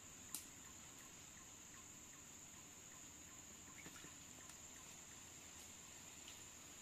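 Near silence: a faint, steady high-pitched drone, like insects calling, with a few faint ticks, the sharpest about a third of a second in.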